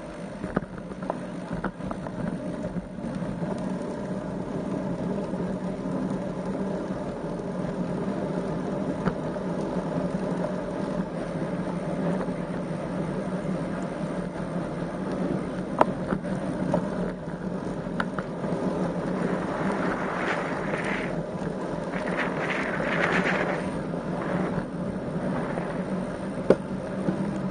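Wind and road noise on a camera riding along on a road bicycle, steady throughout, with scattered small clicks and knocks from the bike. The noise swells for a few seconds about three-quarters of the way in.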